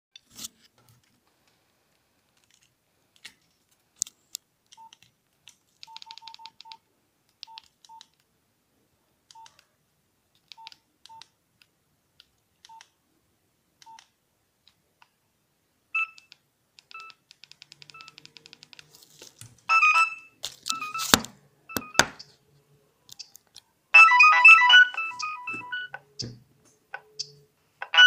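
Nokia 2650 flip phone: short key beeps at one steady pitch and a few clicks as its menus are worked, then brief snatches of a ringtone melody playing from the phone's speaker about 20 seconds in and again at about 24 seconds, as ringtones are previewed.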